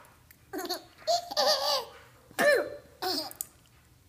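A five-month-old baby laughing in four short, high-pitched bursts of giggles.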